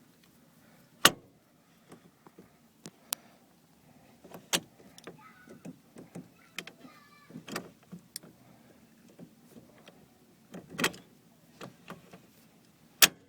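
Sharp metal clicks and clacks of an NRG quick-release steering wheel hub being fitted back onto its base, about six spread over several seconds, the loudest about a second in and at the very end. The hub is a used unit that will not lock tight and stays loose.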